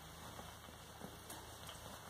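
Faint light ticks and rustling from a baby play gym's hanging toys and plastic rings as a baby bats and grabs at them, over a low steady hum.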